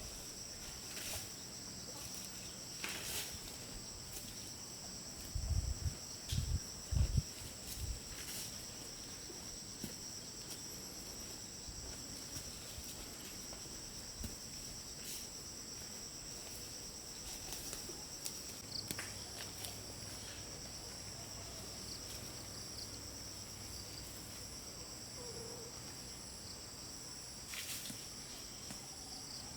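Steady high-pitched chorus of insects such as crickets trilling without pause. A few low thumps stand out about five to seven seconds in, with scattered clicks.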